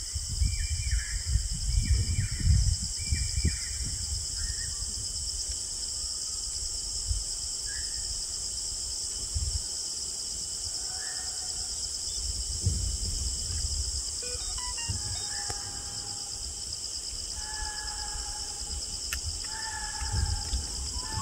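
Steady high-pitched chorus of forest insects, with birds calling over it: a run of short descending calls, about one a second, in the first few seconds, and repeated whistled notes in the second half. Low rumbles come and go on the microphone.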